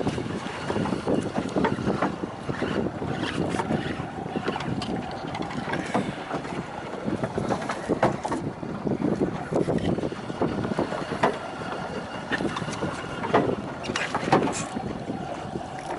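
Choppy water slapping and splashing against the hull of a small boat, with wind buffeting the microphone.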